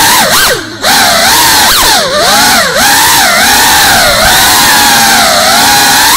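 GEPRC Cinelog 35 cinewhoop's brushless motors and ducted propellers whining loudly, the pitch rising and falling constantly with the throttle, with a brief dip about two-thirds of a second in.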